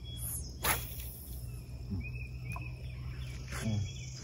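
Outdoor lakeside ambience: a steady low hum with faint short chirps a couple of seconds in, and a brief swish about half a second in.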